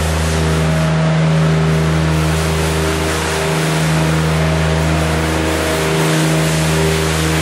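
Avant compact loader's engine running at a steady speed, with the steady hiss of its hydraulically driven carousel broom spinning and sweeping loose straw across the floor.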